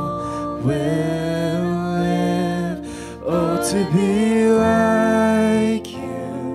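Live worship band playing: a singer holding long sung notes over electric guitar, bass guitar and keyboard.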